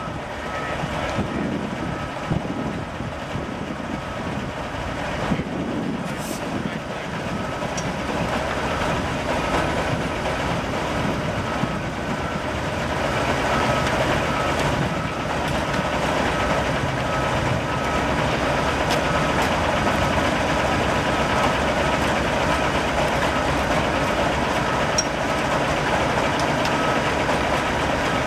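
Semi-trailer prime mover's diesel engine running while reversing, with its reversing alarm beeping in a steady, even rhythm over the engine. The engine gets a little louder about halfway through.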